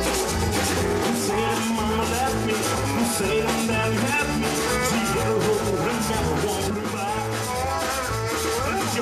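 Live Tex-Mex band playing a rocking instrumental stretch: piano accordion, electric guitars, bass and drum kit over a steady beat.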